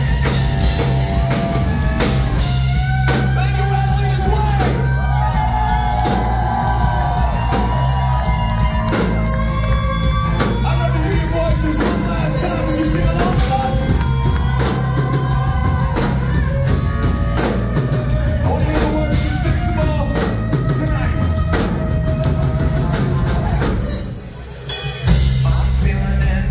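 Rock band playing live through a club PA: a sung lead vocal over electric guitar, bass guitar and drum kit. Near the end the band drops out for about a second, then comes back in on a loud hit.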